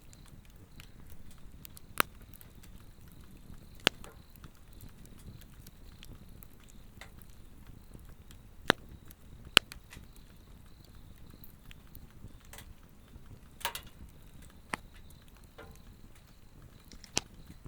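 Swedish torch log fire crackling, with sharp pops and snaps every few seconds, about seven loud ones. A faint, steady, high insect trill sounds behind it.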